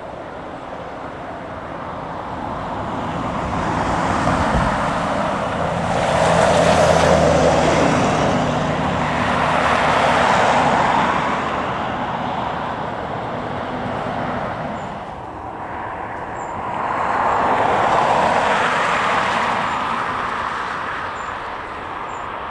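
Engine and traffic noise from passing vehicles, swelling and fading in several waves, loudest about seven, ten and eighteen seconds in.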